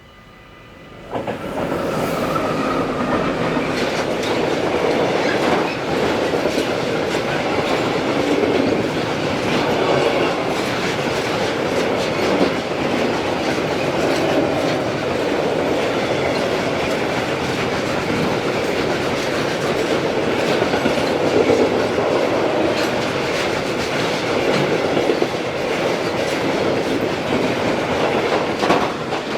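Train passing over a level crossing, its wheels clattering over the rail joints. The sound comes up sharply about a second in and holds steady and loud until it stops abruptly near the end.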